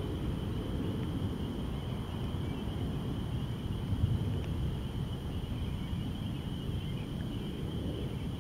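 Outdoor ambience: a steady low rumble with a continuous high-pitched calling chorus above it.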